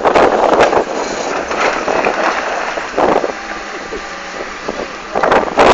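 Jeep Wrangler engine pulling the vehicle up out of a shallow river and onto the bank. Loud bursts of wind rumble on the microphone come near the start, about three seconds in, and near the end.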